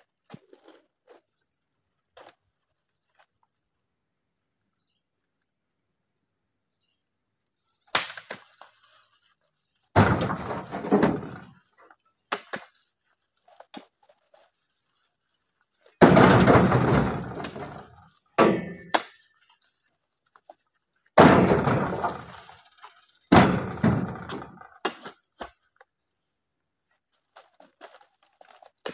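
Heavy oil palm fruit bunches landing with loud thumps as they are tossed into a woven basket and onto the pile, about six in all, each trailing off over a second. A steady high insect buzz sounds underneath.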